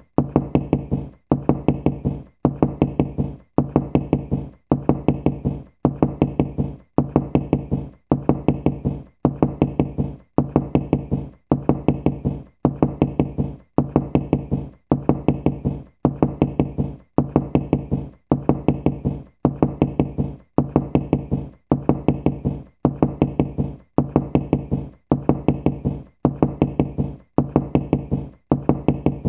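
Knocking: quick runs of several knocks, one run about every second, repeating steadily.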